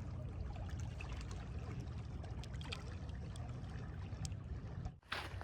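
Lake water washing and lapping along a stony shoreline, under a steady low rumble, with scattered small clicks. The sound drops out briefly near the end.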